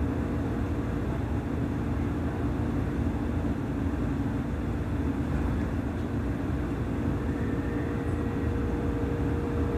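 Seibu 30000 series electric commuter train running at steady speed, heard from inside the front cab: a steady rumble of wheels on rail with a steady low hum.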